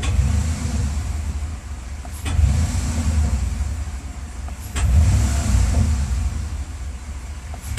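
Car engine running, with a sharp knock sounding three times, each followed at once by the engine revving up. The knock comes just before the revs rise.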